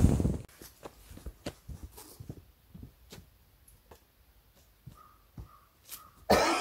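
Scattered small clicks and taps, then near the end a loud, close snort from a dog. A loud rushing sound cuts off about half a second in.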